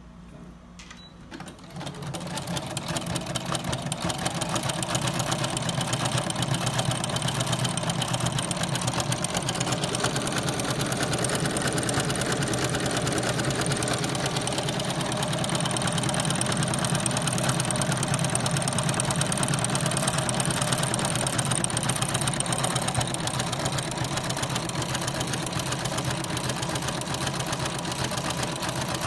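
Computerised household sewing machine stitching through denim, fitted with an overlock presser foot whose blade trims the fabric edge as it sews. It starts up about two seconds in and then runs steadily at a rapid needle rhythm.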